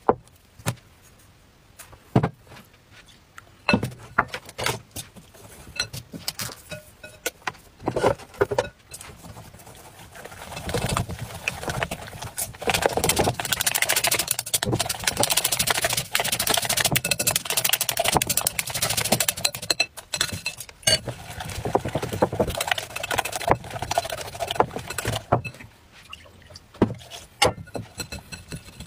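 A utensil tapping and clinking against a glass mixing bowl while egg and flour are worked together. About ten seconds in it becomes rapid, steady beating of the thick batter in the bowl, which slows back to scattered clinks near the end.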